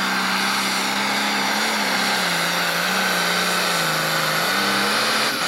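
Pro stock pulling tractor's turbocharged diesel engine running flat out under load as it drags the weight sled, with a steady high whine over the engine note. The engine pitch sags a little midway as the load builds, then comes back up.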